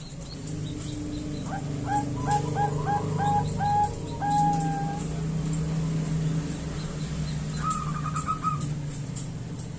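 Female zebra dove (perkutut bangkok) calling: a run of about seven short, evenly spaced coos ending on one longer held note, then a quicker run of higher notes near the end. A steady low hum runs underneath.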